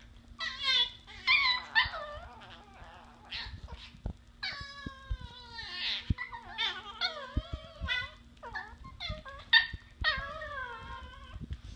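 Chihuahua puppies whining, yipping and howling in play: a string of high, falling calls, short yips mixed with longer whines, the longest drawn out for about two seconds near the middle.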